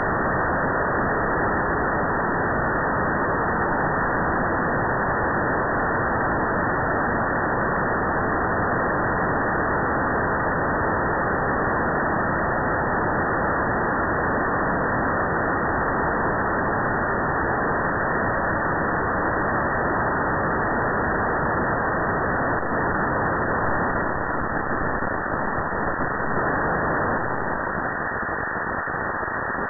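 Steady radio hiss from an RTL-SDR receiver demodulating in FM mode, cut off sharply above about 2 kHz by the receive filter. No station audio comes through, only noise, slightly quieter in the last few seconds.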